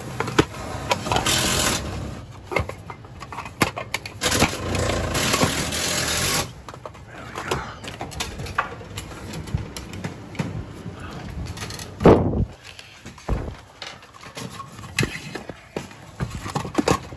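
Thermostat wire being pulled off its spool and fed along, with rustling and clattering of the wire and reel as it is handled; two longer rustling stretches near the start and a sharp knock about twelve seconds in.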